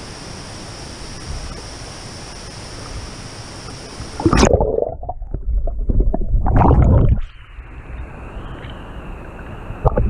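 Steady rush of flowing water, then about four seconds in the sound turns abruptly muffled as the camera goes under the surface, with loud bubbling and gurgling water for about three seconds. It stays dull and muffled afterwards, with a short splash near the end as the camera comes back up.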